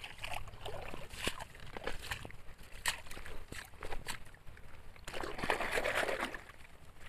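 Loose gravel and pebbles clattering and scraping in short clicks as they are dug out by hand. About five seconds in comes a brief stretch of water sloshing and splashing over wet gravel.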